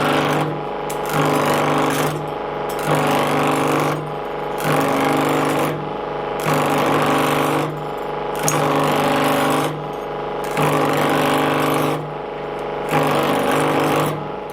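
Pullmax P13 sheet-metal machine running, its motor humming under the rapid hammering clatter of the reciprocating ram. The clatter swells and eases in a regular cycle about every two seconds.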